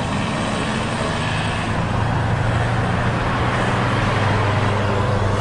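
A motor vehicle's engine running steadily with road noise, a low hum that grows a little stronger about two seconds in.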